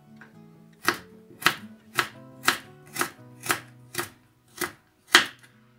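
Kitchen knife chopping a carrot into thin strips on a wooden cutting board. Nine even knife strikes come about two a second, starting about a second in, and the last is the loudest. Soft background music plays underneath.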